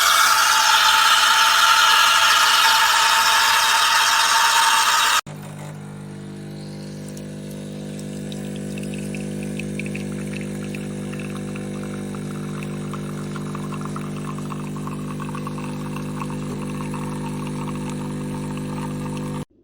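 Espresso machine running: a loud, steady hiss of steam for about five seconds stops abruptly. A quieter, steady buzzing hum of the machine's pump follows and cuts off suddenly near the end.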